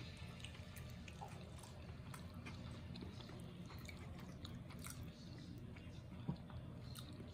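Faint chewing of a man eating a slice of pizza: soft scattered mouth clicks over a low steady room hum.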